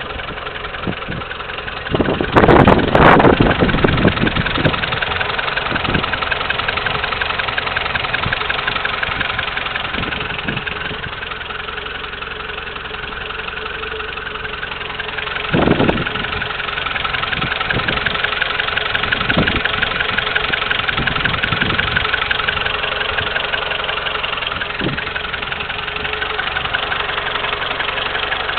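Peugeot 205's carburetted 1.1-litre TU four-cylinder petrol engine idling steadily under the open bonnet, with a short louder burst about two seconds in and another about halfway through.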